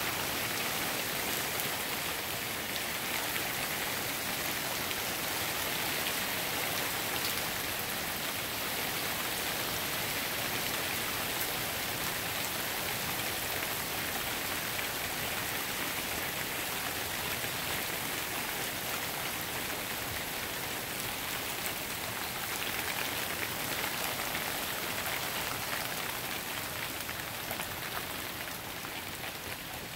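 Steady thunderstorm rain falling on wet pavement and grass, easing a little near the end.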